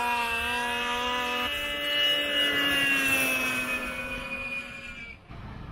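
Snowmobiles accelerating away at full throttle in a drag race, their engines holding a steady high note that sinks slightly in pitch and fades as they pull down the course, then cuts off suddenly about five seconds in.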